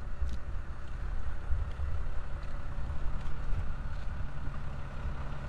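Wind rumbling on the microphone, a gusting low rumble with a faint steady hum underneath.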